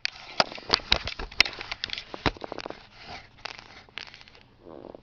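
Irregular clicks, ticks and scraping of a Phillips screwdriver working a screw on the plastic steering-column combination switch housing, with the plastic parts rattling and rubbing; it eases off near the end.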